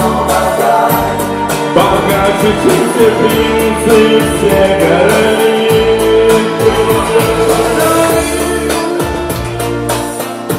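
Music with a sung vocal line over a bass and a steady beat.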